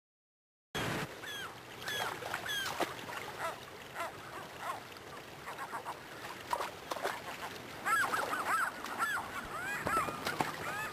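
A flock of gulls calling: many short squawks that rise and fall in pitch, coming thicker about eight seconds in, over the steady rush of a shallow river.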